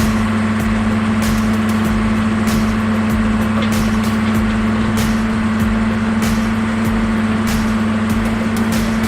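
Vehicle on the move: a steady engine hum and road noise, with short light clicks or rattles every second or so.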